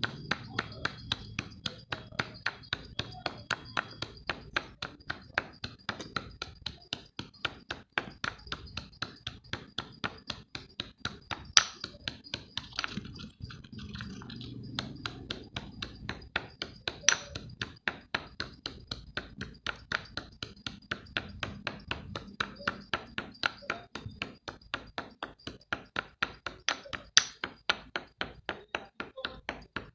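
A hard object struck over and over in a steady rhythm of sharp knocks, about two to three a second, with a few much louder cracking hits along the way.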